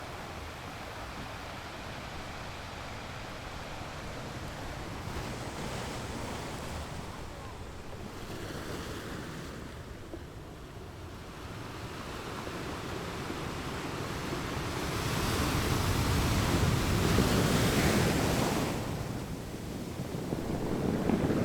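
Ocean waves breaking on a beach: a low, steady wash of surf that builds into a larger wave crashing about 15 seconds in, easing off, then another wave rolling in near the end.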